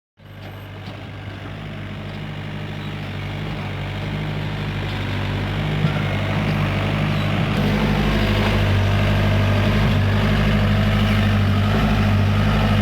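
Hyundai excavator's diesel engine running steadily, growing gradually louder.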